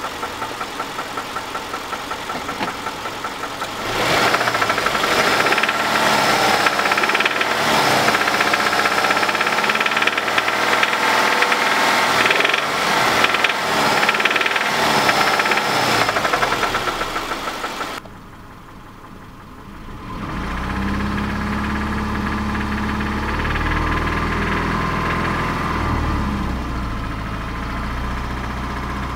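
2005 Subaru Impreza 2.5 RS engine running with a rhythmic knock, the sign of a connecting-rod bearing failure (rod knock). From about four seconds in it gets louder and its pitch rises and falls as it is revved. After a short lull about two-thirds of the way through, it settles into a steadier, lower running.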